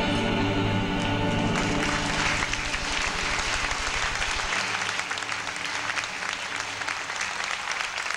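Stage music holding its closing notes, which give way about two seconds in to an audience applauding steadily for the rest.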